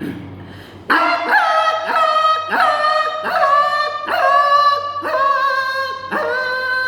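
A man's voice imitating a puppy yelping as it runs away after being beaten: a run of about eight high, drawn-out yelps, each breaking in sharply and then sliding down a little, starting about a second in.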